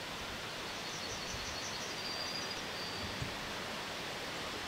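Steady rustle of wind through the trees, with a small songbird singing a quick run of high chirps that ends in a thin trill, starting about a second in.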